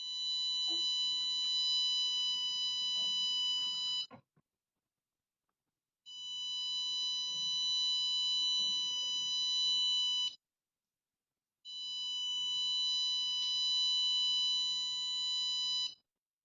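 Piezo buzzer of an Arduino PIR motion alarm sounding a steady, shrill tone three times, each about four seconds long with short gaps between: the alarm going off as the sensor picks up movement.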